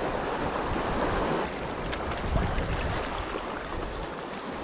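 Sea surf washing against shoreline rocks, a steady rushing wash, with wind buffeting the microphone in low gusts.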